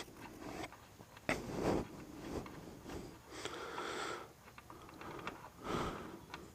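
A person breathing heavily, about five breaths in and out, with a sharp click about a second in.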